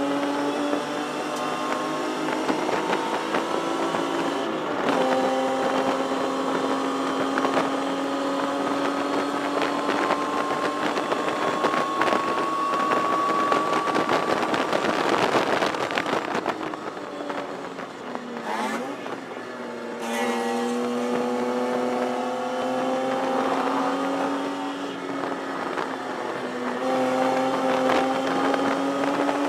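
1973 Datsun 240Z race car's straight-six engine heard from inside the cabin, pulling hard with its pitch climbing slowly. There is an upshift about four and a half seconds in. Around sixteen seconds the note breaks up and drops as the driver lifts and shifts, then picks up lower and climbs again.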